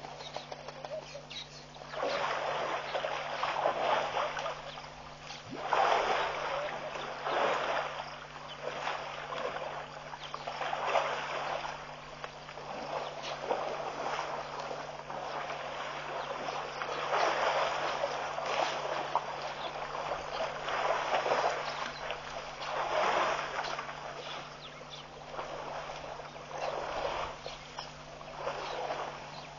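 African elephants wading and splashing through shallow water, in repeated irregular bursts of splashing about every two to three seconds, over a steady low hum.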